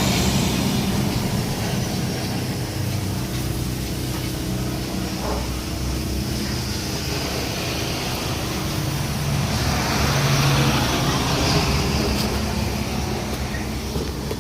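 Bobcat S130 skid steer's diesel engine running steadily, with a high whine that rises and falls over it and a slight swell around ten seconds in.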